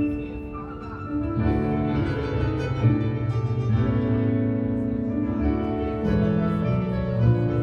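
Music with sustained keyboard-like chords, the held notes changing every second or so and getting louder about a second and a half in.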